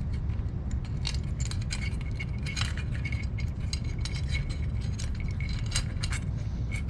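Light metallic clinks and small rattles, scattered and irregular, as a headlight is handled and fitted into a motorcycle's headlight bucket, over a steady low hum.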